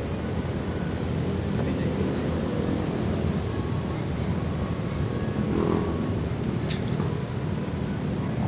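Steady low rumble of city background noise across the river, with a short faint high-pitched sound about seven seconds in.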